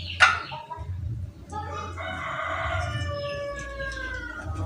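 A rooster crowing once, a long drawn-out call that starts about a second and a half in and sags in pitch toward its end. A short sharp noise comes just before it, near the start.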